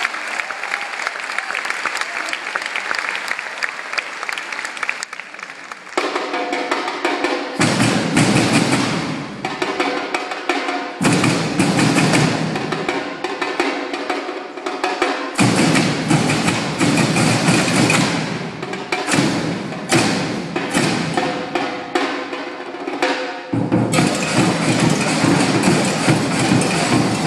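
Percussion ensemble of snare drums and large bass drums playing a loud rhythm. The full drumming comes in about six seconds in after a quieter start, and the deep bass drums drop out and come back in several times.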